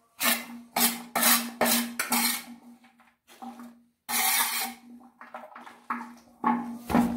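A metal trowel scraping and scooping soil across a hammered metal tray, the tray ringing faintly with each stroke. A quick run of short scrapes, about two a second, gives way to one longer scrape about four seconds in, then more scrapes near the end.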